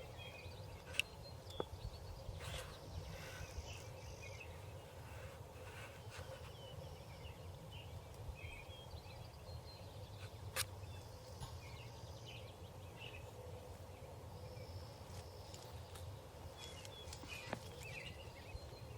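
Quiet outdoor ambience: faint bird calls scattered throughout over a steady low rumble, with a few soft clicks.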